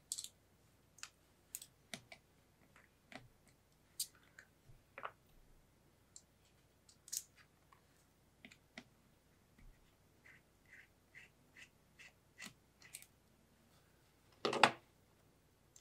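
Faint, scattered small clicks and scrapes of a T5 Torx screwdriver turning out a screw that holds a small board inside an opened MacBook Pro. Near the end comes one louder knock.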